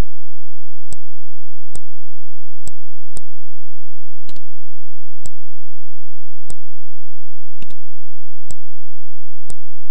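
Computer mouse clicking: about ten sharp single clicks, irregularly spaced roughly a second apart, with one quick double click, over a very faint steady low hum.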